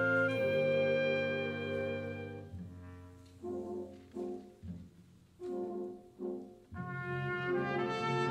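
Wind band playing: a held chord fades away, then French horns play four short phrases separated by near-pauses, and the full band's sound builds again near the end.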